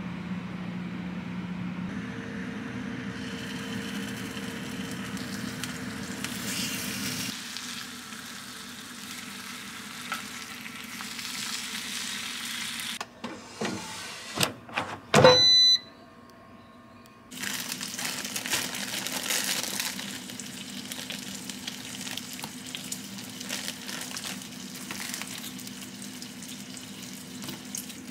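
Kitchen appliance sounds: a steady hum with a faint frying hiss, broken about halfway through by a few clicks and a short electronic beep, then the hum and hiss again.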